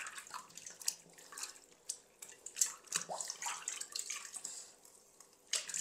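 Water splashing and dripping in a metal pot as hands turn a frozen whole chicken in hot water to thaw it, and lift it partly out. The splashes and drips come irregularly.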